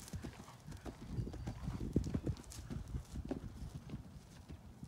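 Hoofbeats of an Oldenburg mare trotting on grass, a run of soft, even thuds that grow fainter near the end as she moves away.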